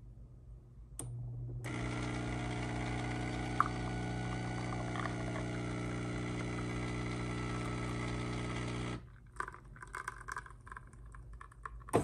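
Café Affetto automatic espresso machine's 20-bar pump buzzing steadily while it pushes espresso through into the cup. The buzz starts about a second and a half in and cuts off suddenly near the three-quarter mark, followed by a few small clicks.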